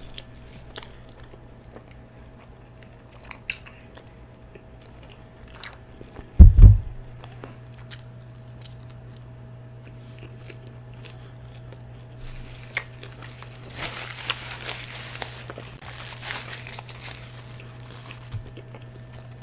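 Close-miked eating: chewing and biting food with small wet clicks, with one loud low thump about six and a half seconds in. For the last five seconds or so, paper wrapper crinkles, under a steady low electrical hum.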